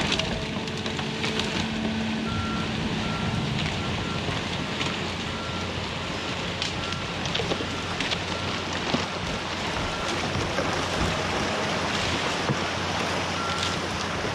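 Water released from a freshly breached beaver dam rushes down the ice-covered creek. Behind it an excavator's engine runs, and its alarm beeps about twice a second, stopping about ten seconds in and sounding again briefly near the end.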